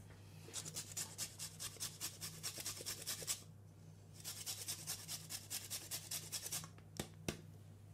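Lemon being zested on a flat rasp grater: quick, light scraping strokes, about five a second, in two runs with a short pause between them, then two sharp clicks near the end.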